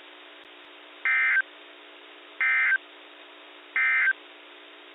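Three short bursts of NOAA Weather Radio SAME digital data tones, about a second and a half apart, each a brief buzzy warble: the end-of-message signal that closes the weekly alert test. Faint radio hiss and hum lie underneath.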